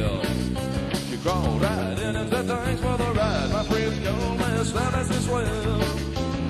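Rock band music playing: a lead line bending up and down in pitch over bass and drums.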